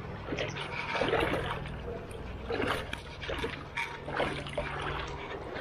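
Shallow river water splashing and trickling over stones, with irregular sloshing splashes about once a second over a steady low rumble.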